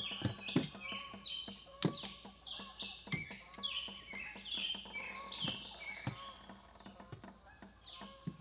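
Birds peeping: many short, high, falling chirps that overlap and repeat throughout, with scattered sharp knocks and clatter, which are the loudest sounds.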